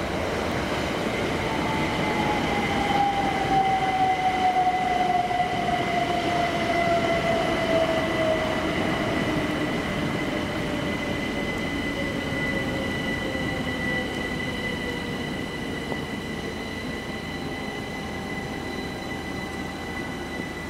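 Southeastern Class 375 Electrostar electric multiple unit slowing into the platform: the traction motor whine falls steadily in pitch as it brakes, over steady high electrical whines and the running noise of the wheels on the rails. The train is loudest a few seconds in, then gradually quietens as it comes to a stand.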